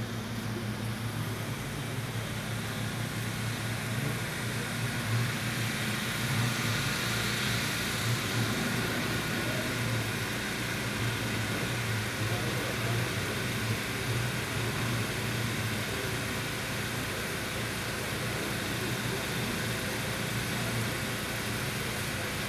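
Steady background noise: a low, unchanging hum under an even hiss, with no distinct events.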